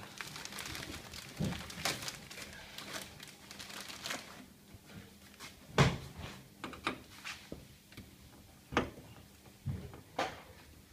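Clear plastic film crinkling and tearing as it is peeled off a car's inner door panel. This is followed by scattered sharp clicks and knocks of plastic parts against the door, the loudest about six seconds in.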